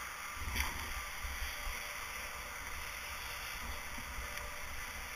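Low, gusting wind rumble on an action camera's microphone, with a single knock about half a second in.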